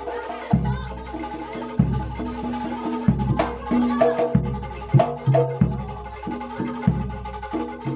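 Jaranan Dor ensemble music: a deep jidor bass drum struck about every second and a quarter, each stroke booming on, under pitched gamelan-style percussion and drums in a steady rhythm.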